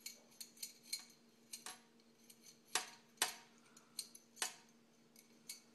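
Metal C-clamp being screwed open by its T-handle: irregular sharp metallic clicks and clinks as the handle bar knocks in its hole while the screw turns, the loudest a little before three seconds in.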